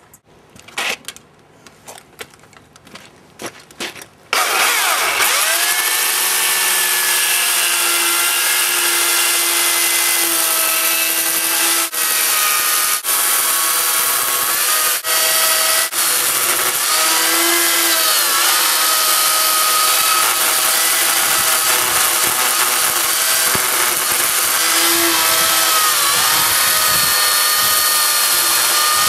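A few knocks, then a chainsaw starts suddenly about four seconds in and runs at speed as it cuts into the end of a jarrah log. Its pitch drops each time the chain bites into the wood and then picks up again, with a few momentary breaks.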